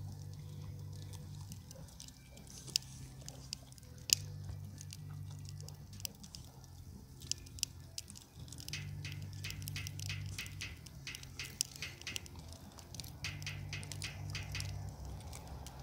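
A dog chewing roasted chestnuts, with sharp crunches and cracks of shell between its teeth, scattered at first and then coming thick and fast in the second half.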